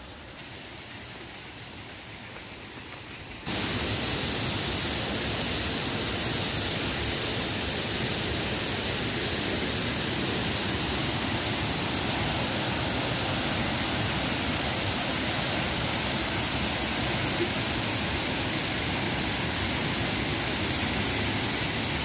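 A waterfall's falling water, a steady, even rushing noise: fainter at first, then much louder after a sudden jump about three and a half seconds in.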